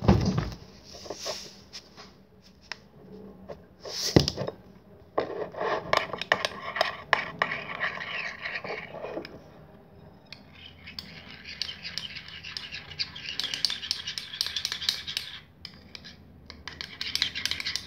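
A metal spoon scraping and clinking around a shallow bowl as slime ingredients are stirred, with a sharp knock about four seconds in.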